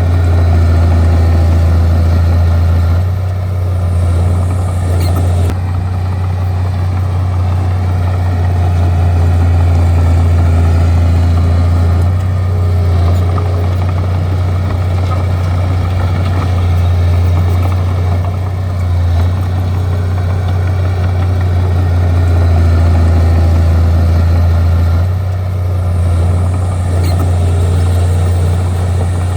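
Bulldozer's diesel engine running with a steady, deep drone, its level dipping briefly a few times.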